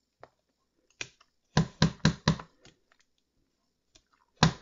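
Clear acrylic stamp block tapped quickly on an ink pad to ink the stamp: sharp taps, one about a second in, four in quick succession around two seconds, and another quick run starting near the end.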